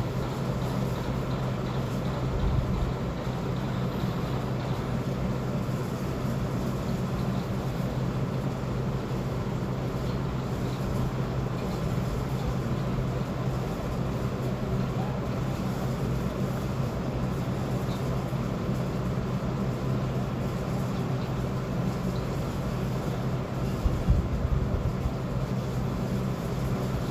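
Hot-air heat gun blowing steadily with a low electrical hum, heating an ECU circuit board to desolder a chip. A few brief knocks about 24 seconds in.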